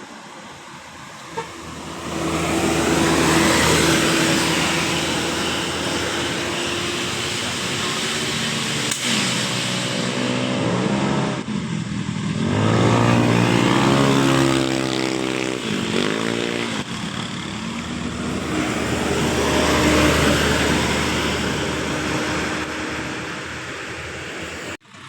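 Large buses driving past close by, with engine and tyre noise throughout. The sound swells three times as vehicles go by, the engine note bending in pitch as the loudest one passes.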